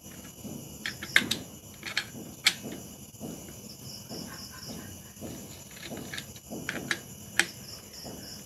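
A socket wrench clicking and clinking on a motorcycle engine's clutch centre nut as it is worked loose, with several sharp metal clicks, the loudest about a second in and again near the end. Crickets chirp steadily in the background.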